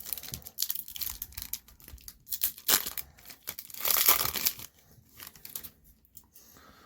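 Foil wrapper of a 2025 Topps Chrome baseball card pack being torn open and crinkled in irregular bursts, loudest about three and four seconds in, then quieter.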